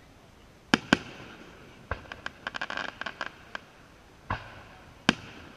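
Aerial firework shells bursting. There are two sharp bangs about a second in, then a quick run of rapid pops, a duller thump, and another sharp bang near the end.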